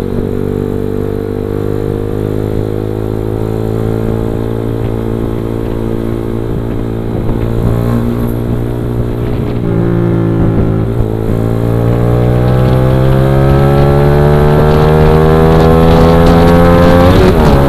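Motorcycle engine under throttle, its pitch climbing slowly, dipping with a gear change about ten seconds in, then climbing again and growing louder before another shift near the end.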